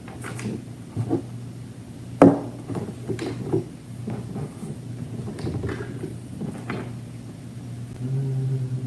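Knocks and clicks from a 3D printing pen and its parts being handled, over a steady low hum. Near the end a louder low buzz sounds for about a second.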